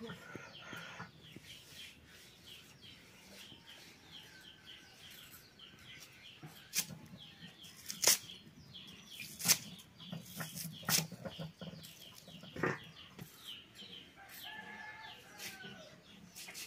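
Hens clucking in the background, with about half a dozen sharp clicks and taps from food preparation with a knife and metal dishes.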